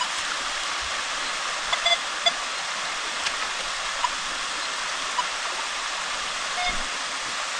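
Mountain waterfall and creek rushing steadily, with a few short electronic beeps from a metal-detector pinpointer about two seconds in and once more near the end.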